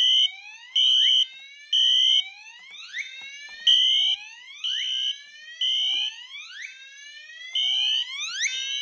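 Fire alarm system in alarm after a manual pull station is pulled. A horn beeps in the temporal-three evacuation pattern (three half-second beeps, then a pause), while a Gentex Commander 3 on its whoop tone sounds rising sweeps about every two seconds.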